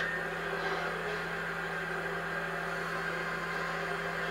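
A steady low hum under an even hiss, with no distinct events.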